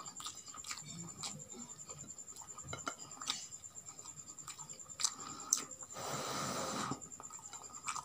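Eating with the hands: scattered soft clicks and smacks of chewing and of fingers picking rice and roasted chicken off a plate, with a rush of noise lasting about a second about six seconds in.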